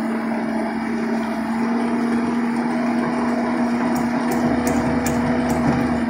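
Self-loading concrete mixer's diesel engine running steadily with a strong hum while the hydraulic loading bucket lifts a scoop of aggregate. A few light clicks come in quick succession near the end.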